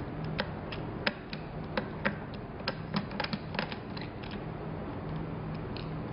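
Plastic parts of a steam mop clicking and creaking as they are handled, about a dozen sharp clicks in the first four seconds, over a steady low hum.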